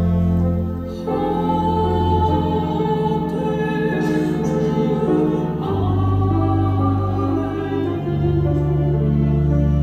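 Soprano singing a hymn stanza over organ and piano accompaniment, the organ holding sustained chords with deep pedal bass notes that change every few seconds.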